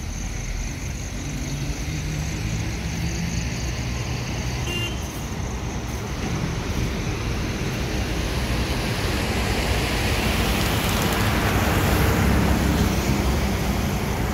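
A motor vehicle's engine running amid road and traffic noise, growing louder toward a peak near the end.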